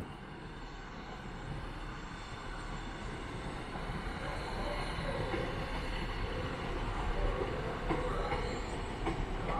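A train moving slowly through the station, its running noise building steadily.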